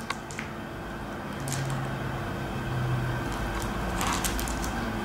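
A small clear plastic bag crinkling and rustling in short, sparse bursts as fingers pick it open, with a couple of faint ticks early on, over a steady low room hum.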